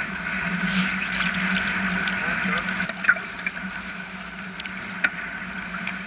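Choppy sea water washing and lapping around a wading angler, a steady rushing sound, with two sharp clicks about three and five seconds in.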